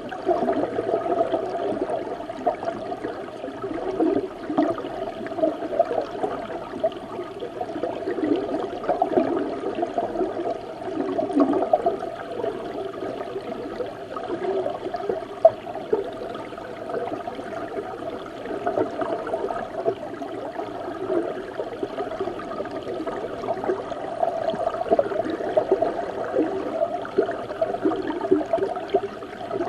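Mountain river water rushing and gurgling, heard from within the stream: a steady, muffled flow with constant small bubbling and little hiss.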